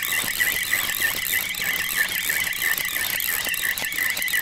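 Spinning reel being cranked to wind in line: a steady high whine that wavers up and down in pitch several times a second.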